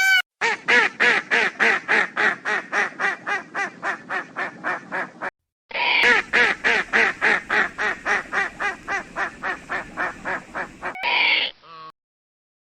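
Waterfowl calling in fast, evenly spaced runs of harsh calls, about four or five a second. There are two long runs with a short gap between them, and a brief burst of calls near the end.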